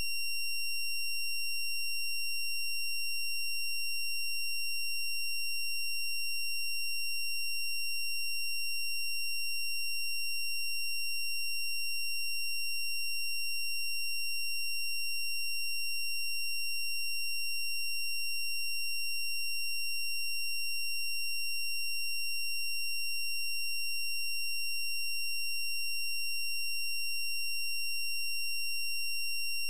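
A steady, high-pitched electronic tone that holds the same pitch and level throughout, with no other sound.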